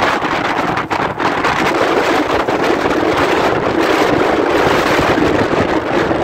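Strong wind of around 70 km/h blowing hard, a loud steady rush with wind buffeting the microphone, easing briefly about a second in.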